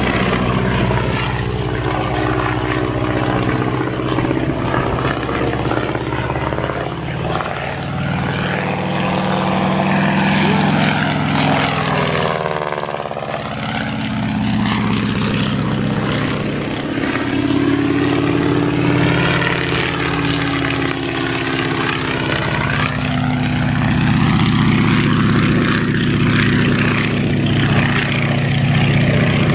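Stearman biplane's engine and propeller droning steadily as it flies past; about twelve seconds in the pitch sweeps down as it passes overhead, and the drone grows louder again toward the end as it comes in low along the runway.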